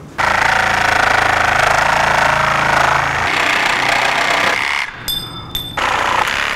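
Bosch cordless reciprocating saw running in a long cut with a fast chatter, its blade working behind the metal stem band on a wooden boat's bow. It eases off briefly about five seconds in, with a high whine, then runs hard again before stopping.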